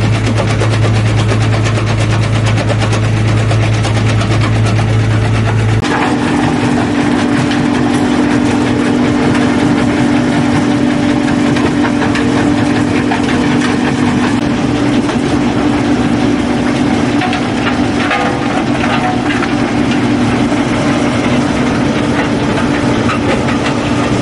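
Mobile rock crusher running with a steady low hum. About six seconds in the sound changes to a steady, higher engine drone with irregular rattling and clattering of rocks as an excavator bucket tips rock and soil into the crusher's hopper.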